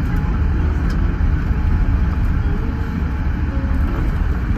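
Steady cabin noise of a Boeing 787-8 on the ground after landing: a deep, even rumble of engines and wheels heard from inside the cabin.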